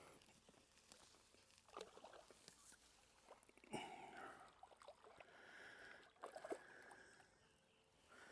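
Faint splashing and sloshing of water as a hooked carp is drawn in toward the bank, with a slightly louder splash or knock about four seconds in.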